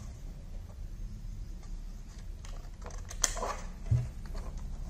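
Light taps and clicks of laser-cut bird-house kit parts being handled and fitted together, with a sharp click a little past three seconds in as an interlock piece snaps into place, and a dull knock just before four seconds, over a low steady hum.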